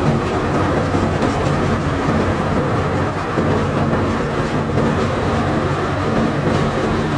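Barge bulk-cargo unloading machinery running: a steady engine or motor hum under a dense, continuous rattle of loose cargo moving on the conveyor.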